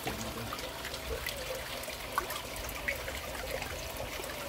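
Koi pond water trickling and splashing steadily, with small scattered plops and drips.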